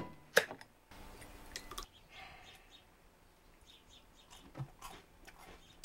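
Faint, scattered small clicks and soft crunches of a person biting and chewing frosted shredded-wheat cereal dipped in pasta sauce.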